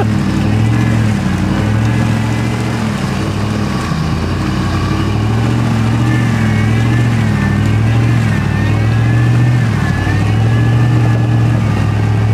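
Off-road vehicle's engine running under load, its revs rising and falling in a slow repeating wave every second or two.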